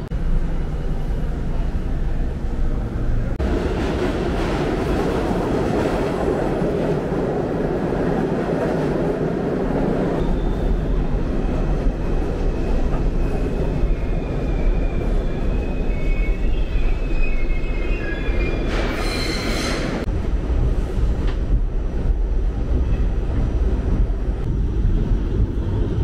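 New York City subway train running, a steady rumble and rattle of wheels on track. Thin, high wheel squeal comes in around the middle, followed by a brief hiss.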